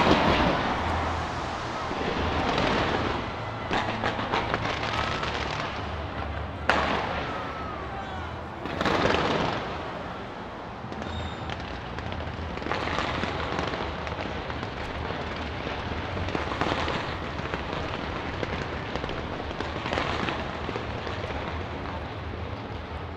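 New Year fireworks fired from the Taipei 101 skyscraper: a continuous dense crackle of bursts with repeated louder surges. The loudest comes right at the start, with a sharp bang about seven seconds in and another surge about nine seconds in.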